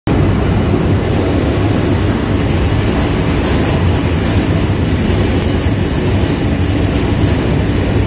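Double-shaft shredder running and tearing up PP raffia bags: a loud, steady mechanical rumble with a low hum, without let-up.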